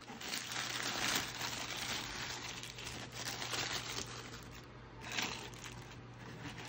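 Shoebox tissue paper rustling and crinkling as hands fold it back, loudest over the first few seconds, with another brief crinkle about five seconds in.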